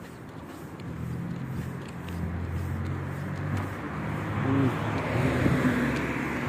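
A car driving up the road towards the microphone, its engine hum and tyre noise growing steadily louder.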